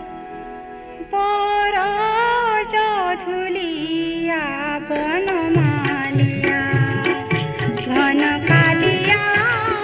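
Music interlude: a held drone-like chord, then a louder wavering melody line comes in about a second in, and drum beats join about halfway through.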